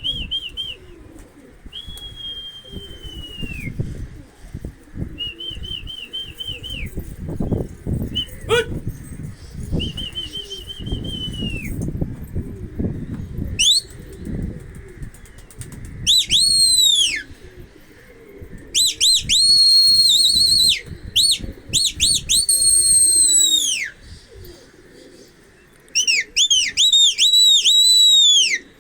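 Pigeons' wings flapping and scuffling, irregular low thumps through the first half. High whistled calls run throughout: short and warbling at first, then loud ones from about halfway that swoop up, hold with a trill and fall away at the end.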